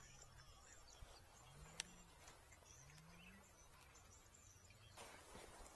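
Near silence: faint outdoor ambience with faint, short high chirps repeating, and a single sharp click about two seconds in.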